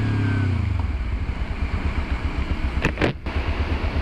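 Kawasaki sport motorcycle running at low speed on a wet road, a steady low pulsing, with a short hiss about three seconds in.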